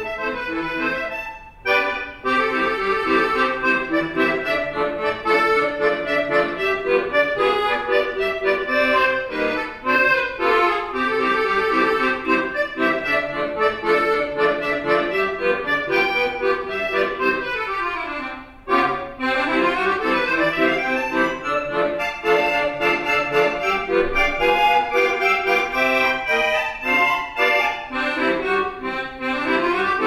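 Solo accordion playing a fast piece of quick runs of notes, with a short break about a second and a half in and another near the middle, the second after a downward run.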